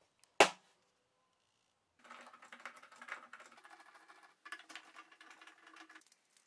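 A small aluminium reduction gearbox knocks down onto the workbench once, sharply. Then a screwdriver turns out the gearbox's cover screws with a rapid clicking rattle, in two spells with a short break between them.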